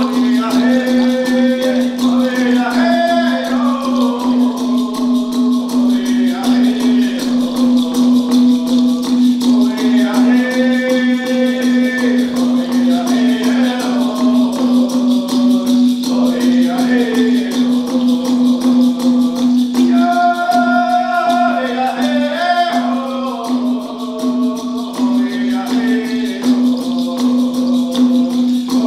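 Men singing a Haudenosaunee social dance song in short phrases, over a fast, steady beat from a water drum and a rattle.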